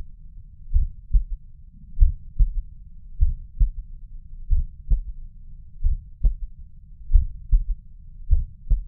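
A human heartbeat heard through a stethoscope over the mitral valve area: about seven slow beats, each a pair of dull low thuds (lub-dub), a little over a second apart. This is the listening spot where a third heart sound (S3) follows the second thud.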